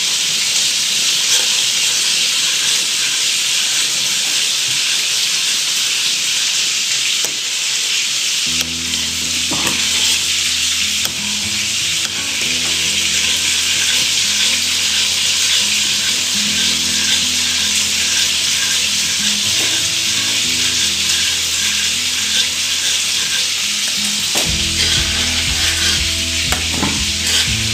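Steady loud sizzling of food cooking in hot pans on a hob, with a metal spoon stirring sauce in a saucepan.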